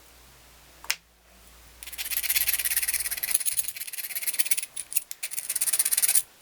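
A single sharp click, then fast, dense rasping scraping from about two seconds in that stops abruptly near the end.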